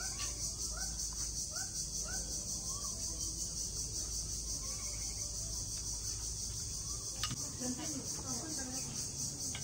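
Steady, high-pitched insect chorus, a continuous pulsing trill typical of crickets or cicadas.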